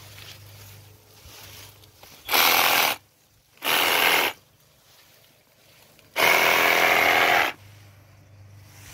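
Three loud bursts of rustling, scraping noise from haskap bush branches being handled during the berry harvest, the last about a second and a half long.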